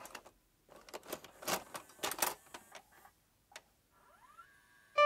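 VCR cassette-loading mechanism clicking and clunking as a VHS tape is drawn in and seated, followed near the end by a short rising whine.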